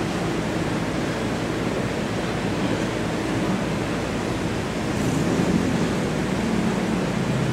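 Steady rushing hiss of church room noise, even in level throughout, with a slightly stronger low rumble of movement or murmur about five seconds in.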